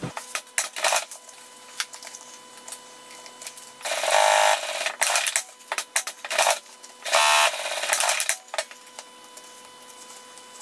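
Fabric being handled at a Juki industrial sewing machine: scattered rustles and clicks, with two louder bursts of under a second each, about four and seven seconds in, over a faint steady hum.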